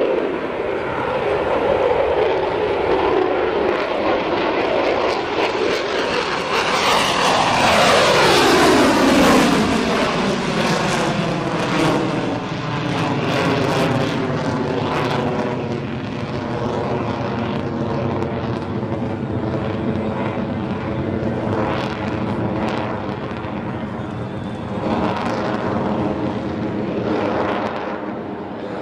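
F-22 Raptor's twin Pratt & Whitney F119 turbofans: loud jet noise as the fighter takes off and flies. About seven seconds in, the pitch falls sharply as it passes. After that comes a steady rumble with a layered whine.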